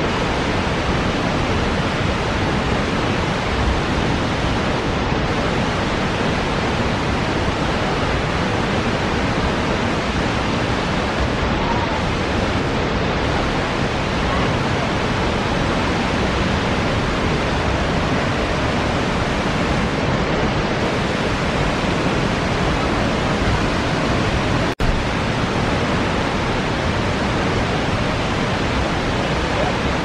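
Steady, loud rush of the Reichenbach Falls, a large mountain waterfall, pouring down its rocky gorge. It drops out for an instant about 25 seconds in.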